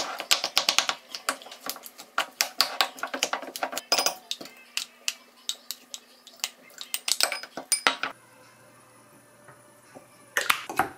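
Wooden spoon knocking and scraping against a ceramic bowl as strawberries are crushed: a quick run of clicks for about four seconds, then sparser knocks. After a quiet stretch, a few more knocks and clinks near the end.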